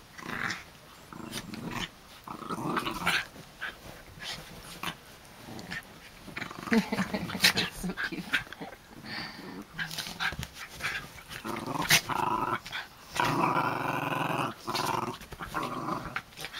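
Two small terrier-type dogs play-fighting, growling at each other in rough, irregular bursts with sharp clicks of mouthing jaws, building to a longer, louder growl a little past halfway. The growling is play.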